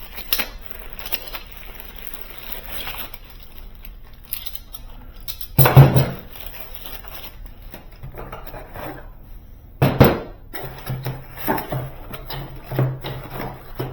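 Door closer hardware being unpacked from its box: packaging rustling and small metal parts clinking, with two loud knocks, about six and ten seconds in, as heavier pieces are set down.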